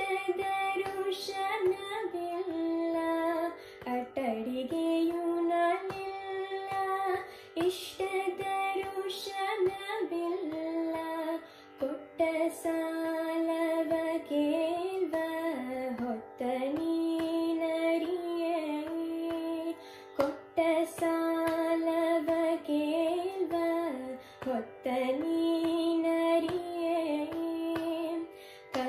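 A girl singing a Carnatic song in raga Bhagyashree, in long sustained melodic phrases with sliding ornaments, broken by brief pauses for breath.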